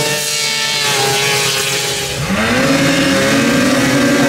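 Racing snowmobile engines at full throttle. One engine's note dips early on, then about two seconds in another climbs sharply in pitch and holds a high, steady note.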